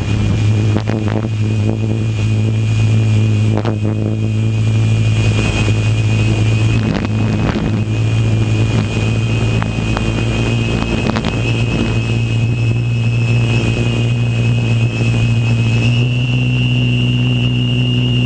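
Multirotor drone's electric motors and propellers running in flight, heard from the onboard camera: a steady buzzing hum with a thin high whine. The pitch steps up slightly near the end as the motors speed up.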